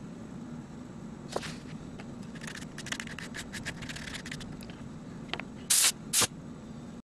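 Ink tools scratching and tapping on paper in a quick run of clicks, then two short, loud hissing bursts near the end, over a steady low hum.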